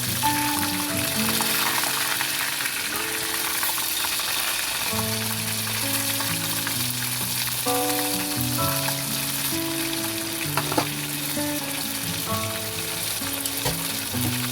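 Food frying in hot oil in a pan, a steady sizzle, with a melody of held notes from background music over it and a single sharp tap near eleven seconds in.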